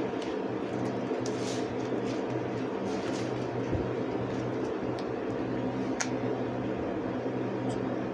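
A steady, even mechanical hum, with a few faint clicks and rustles as rubber resistance bands are stretched and handled.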